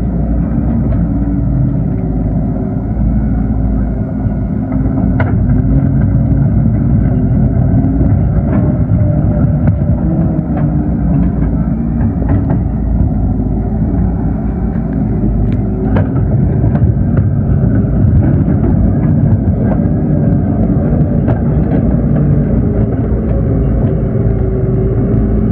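Excavator engine running steadily while the machine works, its pitch shifting a little as the load changes, with a few faint clicks or knocks.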